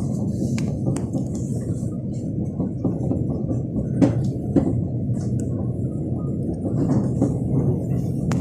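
Steady low rumble of an electric commuter train running between stations, heard inside the carriage. Scattered clicks and knocks come through it, the sharpest about four seconds in.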